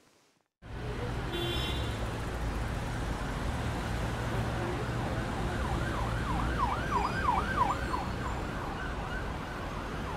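A siren going in fast rising-and-falling sweeps, about four a second, over a steady low traffic rumble. The rumble comes in after a brief silence, and the siren starts about halfway through.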